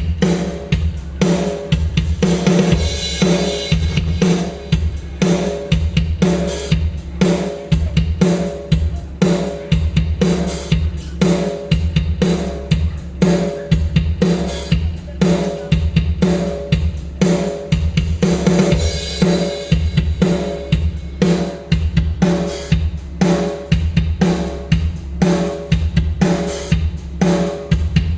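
Recorded drum track: a full drum kit playing a steady rock beat in 4/4 at 120 beats per minute, with bass drum, snare and hi-hat, and cymbal crashes about three seconds in and again near nineteen seconds.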